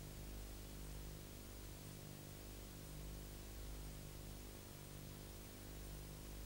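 Faint steady electrical hum with hiss: the blank soundtrack of a silent film, no music or effects.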